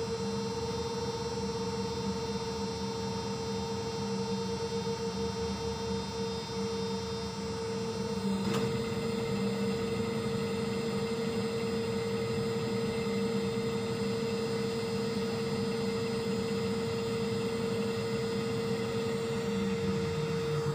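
Ship's deck crane machinery humming steadily while it hoists and slews a slung load of provisions, with one sharp click about eight and a half seconds in.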